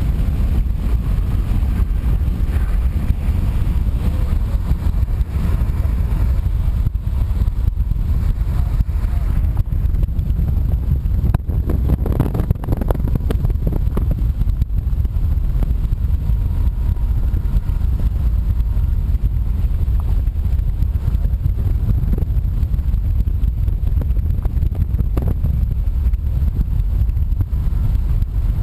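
Car driving along a highway, with a steady low road-and-engine rumble.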